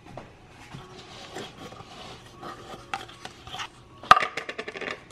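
Cardboard oat canister being handled and its plastic lid pulled off, with soft rustling and small clicks. About four seconds in there is a sharp knock, followed by a quick run of clicks.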